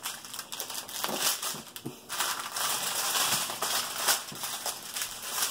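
Small plastic baggies of diamond-painting drills crinkling and rustling as a strip of them is handled, sparse at first and turning into dense crinkling from about two seconds in.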